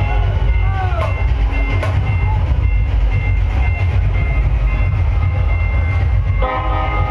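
Banjo party band and DJ sound system playing loud and bass-heavy, with a dense drum-and-bass rumble and a few held high tones, plus a brief sliding tone about a second in. The band's electric banjo melody comes back in strongly near the end.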